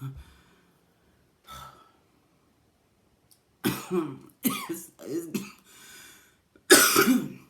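A woman coughing in a series of short coughs from about halfway in, ending in one harder, louder cough near the end, with some throat clearing.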